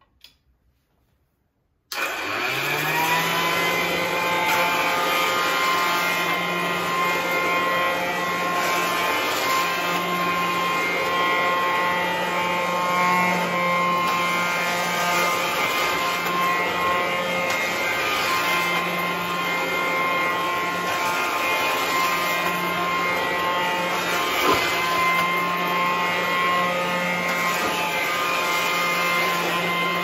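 1920 Torrington upright vacuum cleaner being switched on: a couple of faint clicks, then about two seconds in the motor starts, winding up within a second to a steady whine over a low hum, and runs on steadily as it is pushed over a rug.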